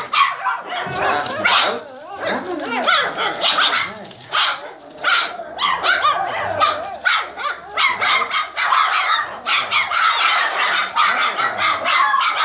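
A litter of 27-day-old boxer puppies barking and yipping together, many high-pitched little barks overlapping with hardly a break.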